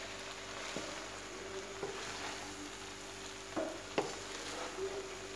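Rice and chicken being gently stirred with a spatula in a hot kadai: a steady sizzle, with a few light knocks of the spatula against the pan.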